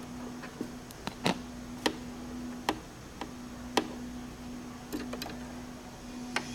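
Sewing machine parts being handled during a needle change: a scattered series of sharp, irregular clicks and taps, over a steady low hum.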